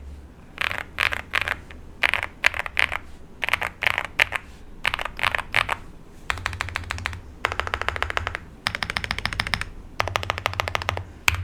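Typing on a Weikav Record Alice mechanical keyboard with Tecsee Ice Strawberry switches. Short bursts of keystrokes with brief pauses give way, about six seconds in, to longer, faster runs of rapid clicks.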